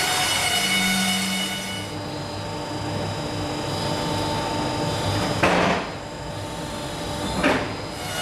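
CTR 1000 H 60 horizontal band sawmill running with a steady whine that eases off about two seconds in. Two loud knocks follow, about two seconds apart.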